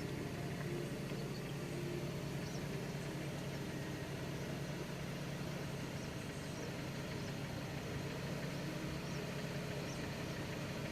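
Vehicle engine idling steadily, a low even hum, with a few faint high chirps over it.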